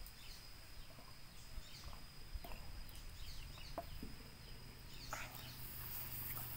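Faint bird chirps: a string of short calls, each falling in pitch, over a thin steady high whine. A rustle of movement comes about five seconds in.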